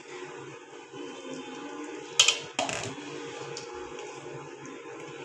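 Two sharp knocks on a steel mixing bowl, about half a second apart, roughly two seconds in, over a faint steady hum.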